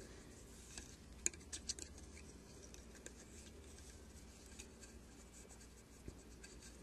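Faint scratching and light clicks of a loom hook lifting yarn over the plastic pegs of a knitting board while purling, with a quick cluster of ticks a little over a second in.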